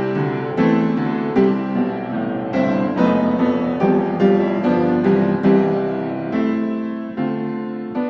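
Background piano music: notes and chords struck about every half second and left to ring.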